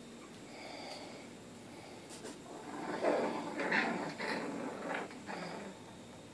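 West Highland white terrier puppies play-wrestling, giving a run of short, rough little vocal noises in the second half.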